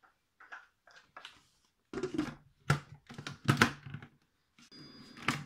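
Plastic lid of a Monsieur Cuisine Plus food processor being fitted onto its steel mixing bowl: light clicks at first, then a run of louder knocks and clatter about halfway through as it is set in place and locked.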